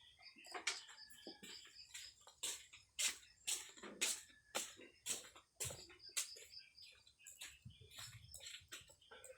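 Keystrokes on a computer keyboard: faint, sharp clicks, irregular at about two a second.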